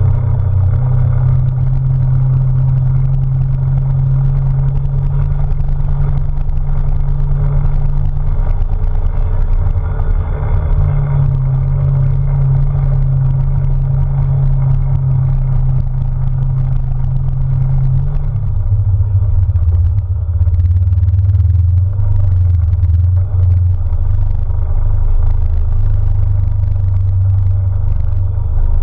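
Polaris RZR side-by-side's engine running steadily as it drives a dirt trail, a loud low drone whose pitch steps down about two-thirds of the way through.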